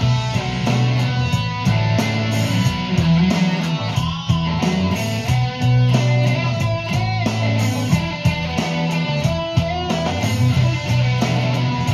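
Sunburst Stratocaster-style electric guitar played through an amplifier, a rock boogie riff, over a steady bass line and regular drum hits.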